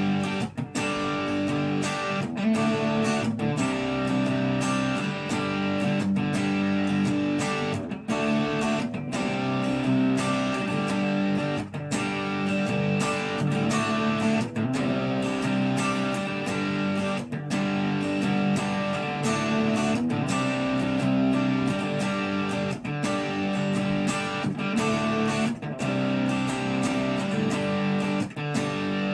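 Guitar-led background music.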